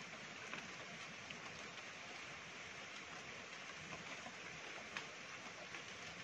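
Steady faint hiss with scattered soft ticks.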